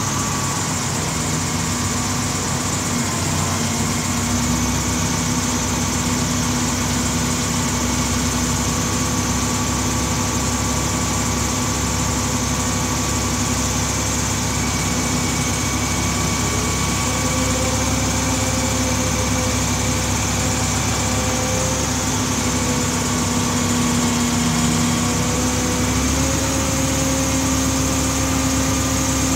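Large diesel engine of a Liebherr LTM1350-6.1 mobile crane running steadily at a low speed, with a steady whine over the engine. Its pitch steps up slightly a few times.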